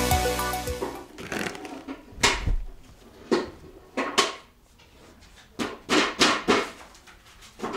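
An uneven run of about nine knocks and thumps as a metal spirit level and a bread roll are set down and knocked against a wooden board.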